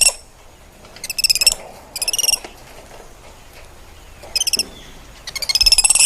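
Spider monkey calling in short bursts of rapid, high-pitched chirps: four trills, each under a second long, with pauses between.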